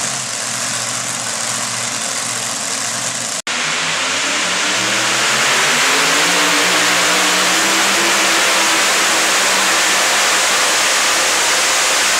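Supercharged, alcohol-burning modified 4x4 pulling truck engines. For the first three seconds one truck's engine runs steadily at the line. After a brief dropout, another truck's engine revs up, its pitch climbing over a few seconds, then holds loud at full throttle as it drags the pulling sled.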